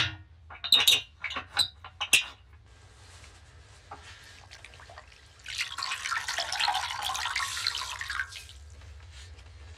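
A few sharp clicks, then water splashing and trickling into a metal basin for about three seconds.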